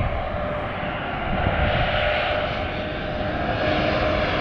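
Twin-engine jet airliner on final approach, coming in low to land: a loud engine rumble with steady whining tones over it, growing a little louder toward the end.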